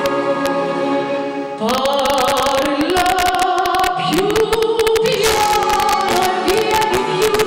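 A woman singing live into a microphone, backed by a band with piano. Her voice holds a long note over sustained accompaniment at first; about a second and a half in, the band comes in with a beat and she sings on.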